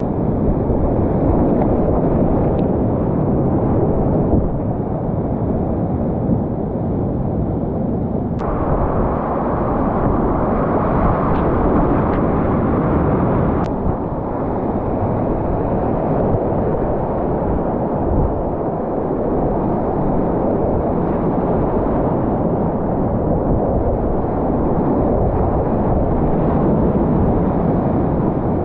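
Whitewater rapids rushing loudly around a kayak, with a deep rumble. The sound changes abruptly about 8 seconds in and again near 14 seconds.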